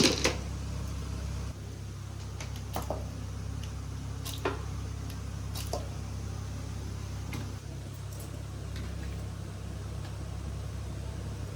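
A steady low hum with a few faint, light knocks scattered through it.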